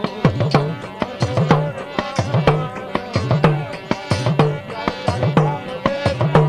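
Instrumental passage of Gujarati devotional folk music: a hand drum plays a steady beat of deep bass strokes with sharper slaps between them.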